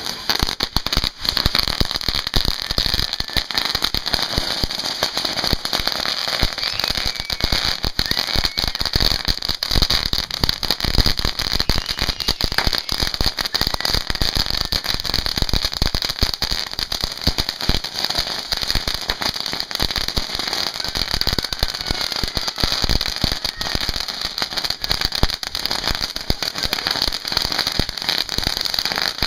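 Ground fountain fireworks spraying sparks. They give a steady loud hiss packed with dense crackling that starts at once and keeps going without a break.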